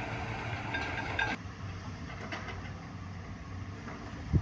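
Excavator engine running steadily, with its higher-pitched sounds cutting off suddenly about a second and a half in. A single thump near the end.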